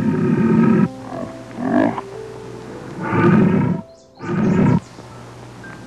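Lion roaring in a series of four calls, each under a second and the second one shortest, over soft background music with sustained notes.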